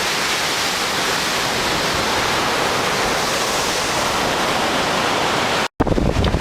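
Steady, even rushing of hurricane wind and heavy surf. Near the end the sound cuts briefly, then wind buffets the microphone in gusts.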